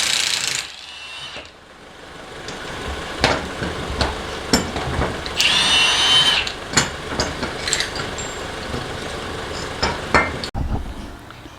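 A power tool running in two short bursts, one right at the start and one about six seconds in, while a car's front suspension is being taken apart, with scattered metallic clicks and knocks of tools and parts in between.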